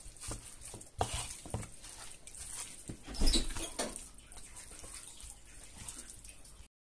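Raw chicken drumsticks being squeezed and turned by hand in a bowl to work in a spice rub and lemon juice: irregular soft squishes and slaps, with a louder knock about three seconds in.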